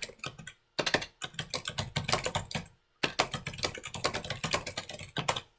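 Typing on a computer keyboard: quick runs of keystrokes, with a short break about three seconds in, stopping shortly before the end.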